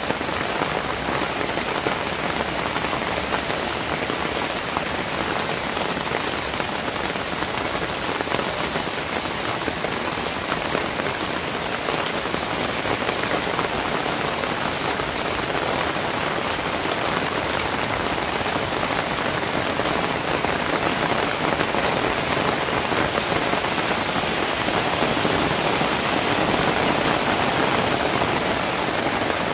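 Steady rain falling on a paved lane and the surfaces around it, an even hiss of many drops with no let-up.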